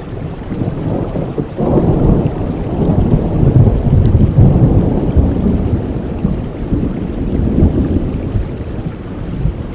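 Thunder rolling over steady rain. The deep rumble swells about a second and a half in, is loudest in the middle and fades away near the end.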